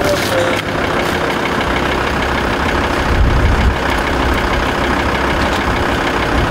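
Van engine idling with a steady low rumble that swells for a couple of seconds in the middle.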